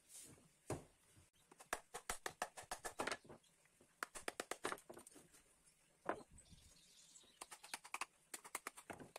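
Hammer striking the wooden legs and rungs of an old stool to knock the joints apart: quick runs of light knocks, several a second, with a heavier single knock about a second in and another about six seconds in.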